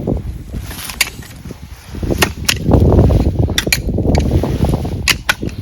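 Wind buffeting the microphone, a low rumble that builds about two seconds in and is loudest around the middle, with several sharp clicks or knocks.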